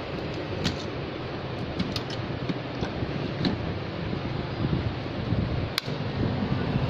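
A few light clicks from the plastic handle of a hot-air rework gun being handled over steady background noise. Near the end a sharp click as the 850+B hot-air rework station is switched on, and then a steady low hum from the station starts and holds.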